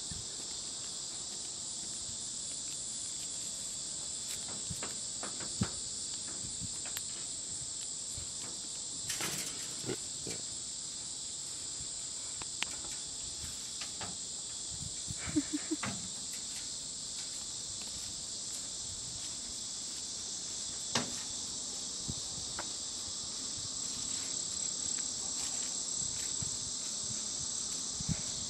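Steady, high-pitched chorus of insects, with a few faint short knocks here and there.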